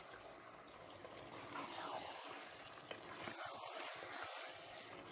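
Mutton, tomatoes and spices sizzling and squelching in a pressure-cooker pot as they are stirred with a spatula, with a small click about three seconds in.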